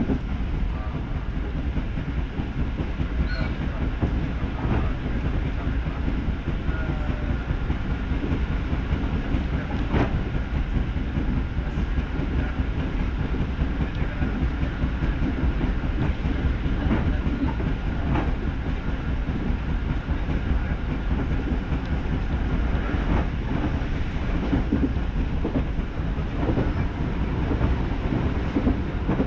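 Joban Line local electric train running along the line, heard from inside the passenger car: a steady low rumble of wheels and running gear, with scattered sharp clicks from the wheels on the track.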